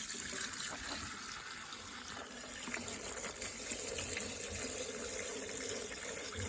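Liquid being poured into the tank of an ultrasonic cleaner, a steady splashing pour.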